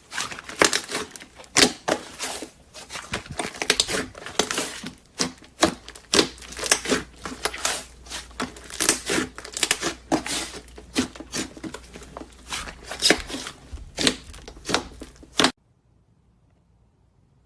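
Slime being squeezed and worked by hand, giving a dense run of crackling pops and clicks. It cuts off suddenly near the end.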